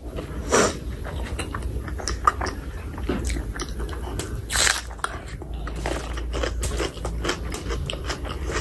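Close-miked eating: chewing and mouth clicks of rice and chicken skin curry eaten by hand, with two louder bursts, about half a second in and again about four and a half seconds in.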